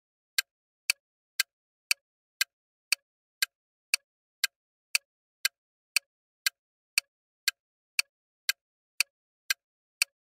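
Quiz countdown-timer sound effect: sharp, even ticks, two a second, about twenty in all, with nothing else between them.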